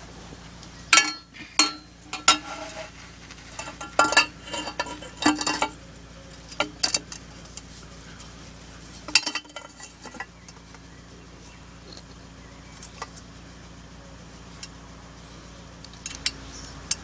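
Metal clinks and clatter as the BMW K75's exhaust downpipes and their fittings are handled and fitted onto the cylinder-head studs: a busy run of clinks in the first few seconds, then only an occasional single tick over a faint steady hum.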